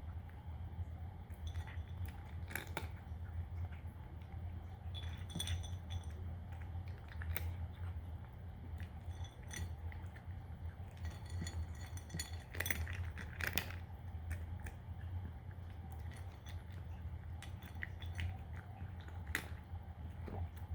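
A cat crunching dry kibble, with irregular crisp crunches and clinks in small clusters over a steady low hum.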